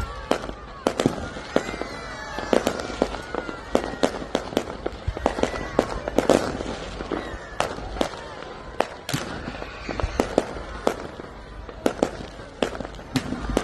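Aerial fireworks going off in quick succession: many sharp bangs and cracks, a few each second, over a bed of people's voices.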